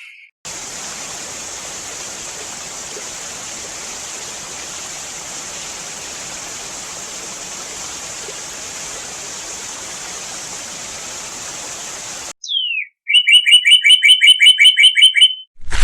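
Waterfall sound effect: a steady rush of falling water for about twelve seconds that cuts off suddenly. It is followed by a northern cardinal singing: one downward-slurred whistle, then a fast, loud run of about fourteen repeated chirps.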